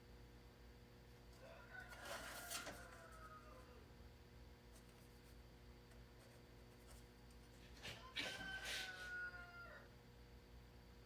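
A rooster crowing twice, faintly, each crow about two seconds long and falling in pitch at the end.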